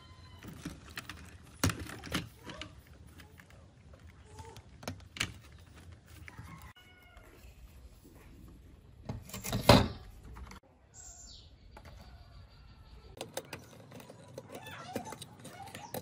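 Scattered small plastic clicks and knocks as wire-harness connectors are unplugged and the circuit board and plastic chassis of an old iRobot Roomba are handled, with one louder clatter about ten seconds in.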